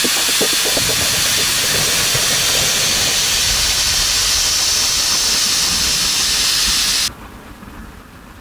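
End mill machining on a CNC milling machine: a loud, steady hiss with fine crackling, cutting off abruptly about seven seconds in, after which only a faint fading sound remains.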